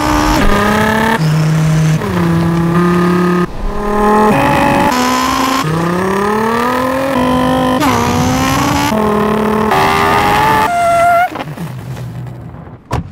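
A beatboxer imitating a racing car engine with his voice. The pitch slides up and jumps like gear shifts, again and again, then fades away about eleven seconds in, with a single sharp click near the end.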